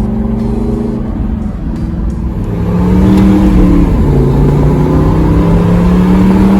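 2014 Aston Martin V8 Vantage's 4.8-litre naturally aspirated V8 running under way. It gets louder about three seconds in, its pitch steps down about a second later, and it then holds a steady note.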